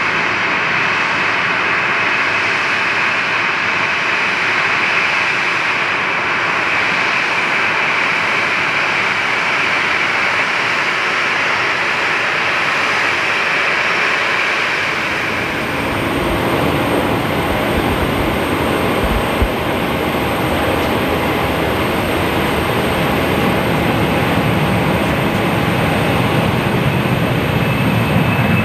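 Boeing 737-800's CFM56 jet engines running steadily at taxi power, a loud whining rush. About halfway through, after a cut, an Embraer E190's jet engines take over with a deeper rumble and thin high whine that grows toward the end as it begins its takeoff run.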